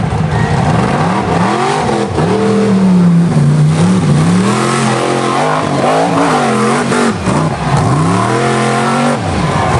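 Off-road truck engine revving hard over and over, its pitch climbing and dropping about half a dozen times as the throttle is worked on and off.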